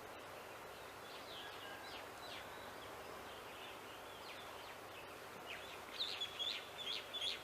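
Outdoor ambience: a steady background hiss with small birds chirping, short sharp calls that come thicker and louder from about six seconds in.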